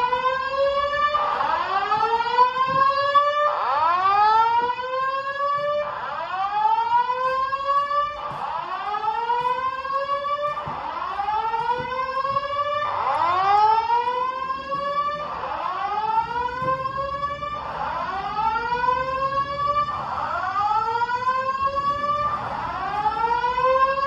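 Speakers of a Simplex 4100ES voice-evacuation fire alarm system sounding the whoop tone: a rising sweep repeated about every two and a half seconds. The system has gone back to the whoop after a single loop of the spoken evacuation message.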